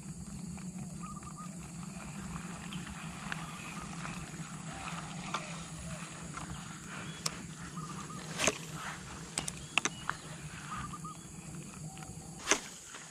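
Outdoor field ambience: faint short bird chirps over a steady high insect drone and a low steady rumble. Several sharp clicks fall in the second half, the loudest near the end.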